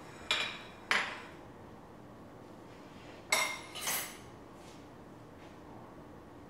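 Metal cutlery clinking against ceramic plates: four sharp clinks with a brief ring, two about a second in and two more a little past the middle.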